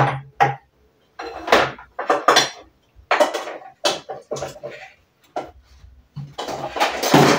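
Dishes and cups clattering and clinking as they are picked up and set down against each other, in a run of separate knocks, the loudest and longest clatter near the end.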